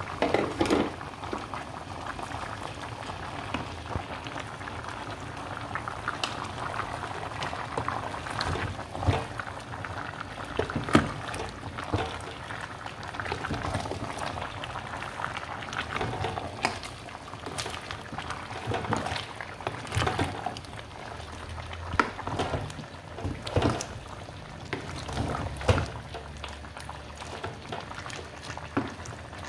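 Pot of meat bubbling on the stove while meat is stirred in with a wooden spoon, with scattered knocks of the spoon against the pot.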